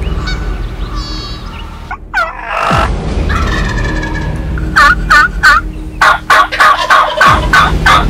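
Wild turkey gobbling: a short gobble about two and a half seconds in, then repeated rolling gobbles from about five seconds on, over a low steady rumble.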